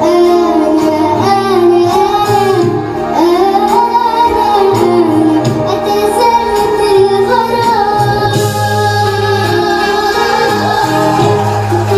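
A voice singing a melody over instrumental accompaniment with a steady bass line.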